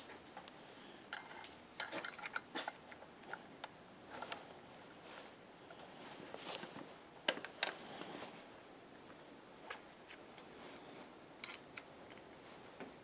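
Light clicks and taps of small machined metal parts being handled and set against one another, scattered through: a cluster about two seconds in and the sharpest a little past the middle.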